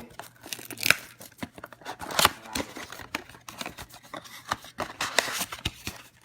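Trading card boxes and foil packs handled and opened by hand: irregular sharp clicks and snaps with short bursts of crinkling and tearing wrapper.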